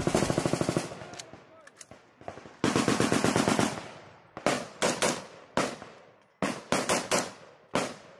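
Live rifle gunfire: a rapid automatic burst at the start and another about two and a half seconds in, each lasting about a second, then single shots and quick pairs under a second apart. Each shot trails off in a short echo.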